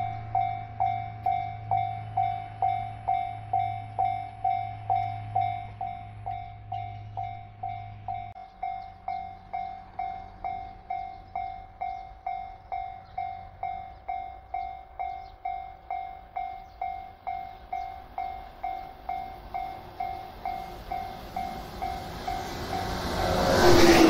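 Japanese railway level-crossing warning bell ringing steadily at about two strikes a second, signalling an approaching train. Near the end a yellow electric train arrives, its rumble rising loudly over the bell.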